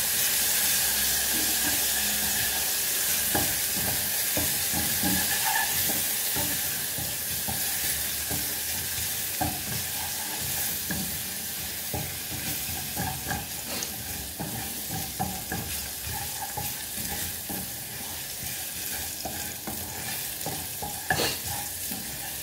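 Chopped garlic sizzling in hot oil in a pot as a wooden spoon stirs it, tapping and scraping against the pan. The sizzle slowly dies down, with a sharper knock near the end.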